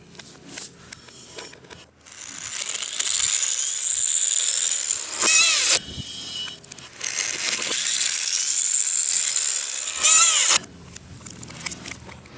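Power drill driving screws into a wooden board: two runs of about four seconds each, the motor whining high and steady, each run ending in a brief louder burst of the bit working the screw. Light handling knocks come before and after.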